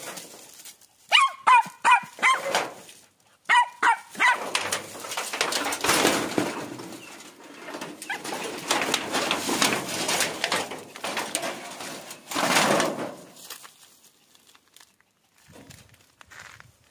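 Animal calls in two quick runs of four or five short yelps, followed by several seconds of rustling and scraping that dies away about three-quarters of the way through.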